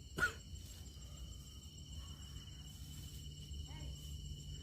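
Night insects, crickets or similar, trilling in steady high tones over a low hum. A short faint sound comes at the start, and a faint distant animal call comes about three and a half seconds in.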